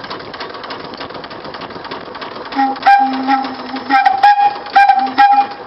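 Steam boat whistle blown on compressed air: several short blasts of a steady high note with a lower note under it, starting about two and a half seconds in. Under them, the boat's small steam engine runs on 60 psi of air, which gives a steady hiss.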